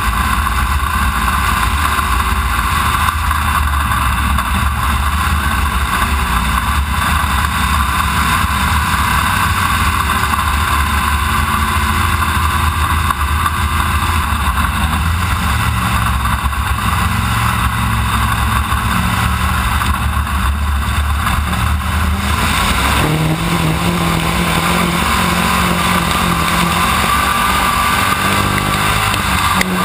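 B-Mod dirt-track race car's V8 engine running hard in a race, heard from a hood-mounted camera with wind noise over it. Its pitch rises and falls through the laps and climbs sharply about three-quarters of the way through as the engine revs up.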